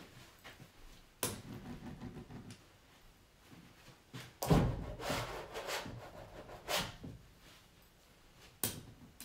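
A handful of knocks and clunks from someone moving about and handling things off to one side, the loudest about four and a half seconds in, with softer rustling between.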